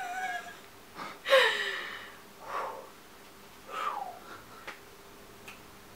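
A woman's breathy laughs and sighs in four short bursts, each falling in pitch, the loudest about a second and a half in; embarrassed laughter at having lost her words.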